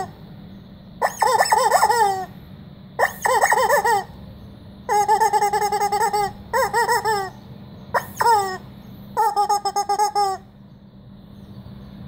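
Yellow rubber chicken squeeze toy squawking about six times in the first ten seconds, each a loud honking squeal with a wavering pitch, some short and some about a second long.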